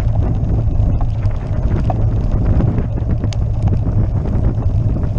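Road bicycle rattling over cobblestones: a steady low rumble with rapid, irregular clattering of the frame and parts, mixed with wind buffeting the microphone.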